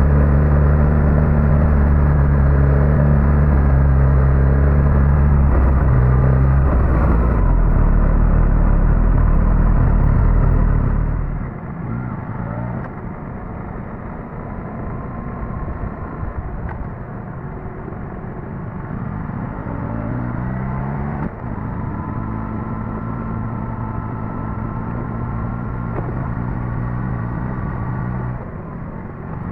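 Suzuki GSX-S1000GT's inline-four engine running under way, steady and loud at first, then easing off about eleven seconds in to a quieter, rougher sound, and pulling again from about twenty seconds.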